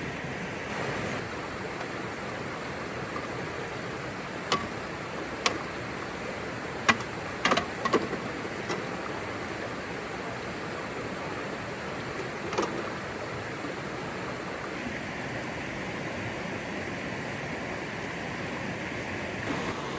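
Steady rush of flowing water from a stream or waterfall. A handful of sharp knocks or clicks fall between about four and thirteen seconds in, the loudest near the middle.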